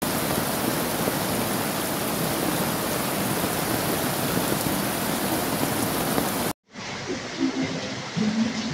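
Heavy rain and fast-flowing muddy floodwater making a steady, loud hiss. It cuts off abruptly about six and a half seconds in, and quieter rain follows with faint, indistinct low sounds.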